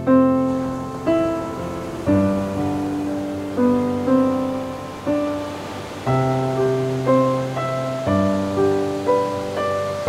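Slow, gentle solo piano, a note or chord struck about every second and left to ring and fade, over a faint wash of ocean waves.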